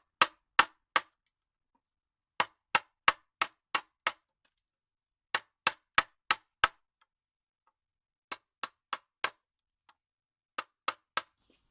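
Wood chisel being struck to rough out a wooden handle: sharp, crisp strikes in five quick bursts of three to five blows, about three a second, with short pauses between bursts.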